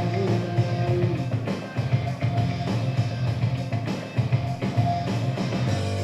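A live rock band playing an instrumental passage, with electric guitar, bass and a drum kit keeping a steady beat.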